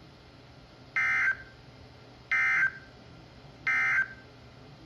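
Three short bursts of NOAA Weather Radio SAME digital data, the end-of-message (NNNN) code that closes an Emergency Alert System warning. Each is a buzzy two-tone data burst about a third of a second long, and they come about a second and a third apart.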